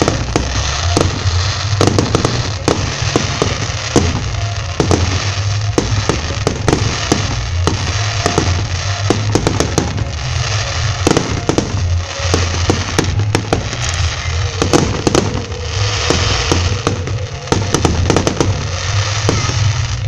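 Fireworks going off at close range: a rapid, irregular run of sharp bangs and crackles, often several a second, over a continuous hiss of burning and falling sparks.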